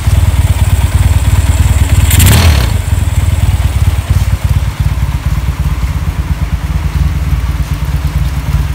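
Motorcycle engine running at idle with a loud, pulsing exhaust, with a brief louder burst like a throttle blip about two seconds in before it settles back to idle.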